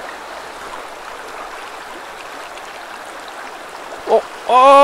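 Mountain stream running steadily over rocks, an even rushing sound. A man's short vocal exclamation breaks in about four seconds in and again just at the end.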